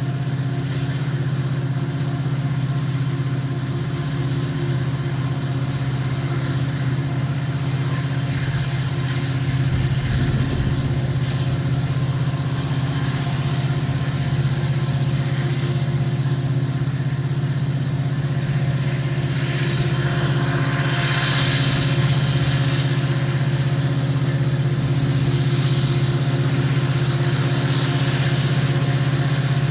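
Diesel locomotive engines of a Union Pacific freight train running at a steady, unchanging pitch, with a hiss of wheel and rail noise that grows louder in the second half.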